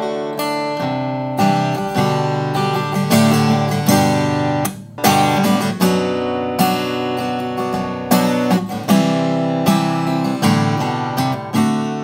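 Seagull S6 Spruce acoustic guitar, with a solid spruce top and wild cherry back and sides, strummed in a run of chords that ring between strokes. The last chord is left ringing and dies away near the end.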